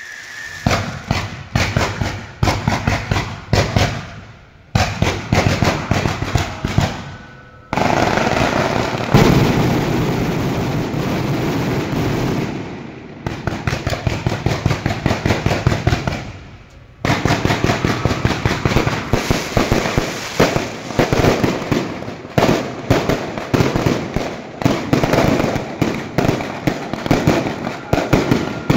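Electronically fired fireworks going off in dense, rapid strings of sharp cracks and bangs, with a few brief pauses and a thick stretch of continuous crackling a third of the way through.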